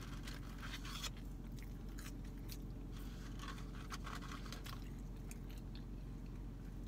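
Someone chewing McDonald's French fries and handling the paper fry carton: scattered small crunches, scrapes and paper rustles over a steady low hum.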